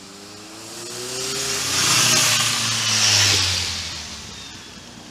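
A motor vehicle passing close by: engine and road noise swell to a loud peak two to three seconds in, then fade away, after an engine rising in pitch as it picks up speed.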